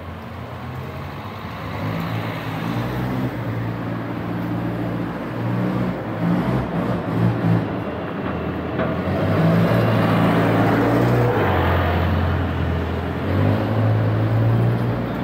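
An engine running close by and growing louder, its pitch holding steady and then shifting up or down every few seconds.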